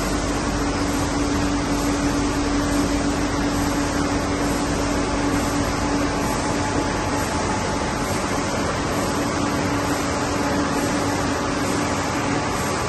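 A 2011 Nilpeter FB 3300 servo-driven UV flexo label press running: a steady whirring machine noise with an even hum, with no starts, stops or knocks.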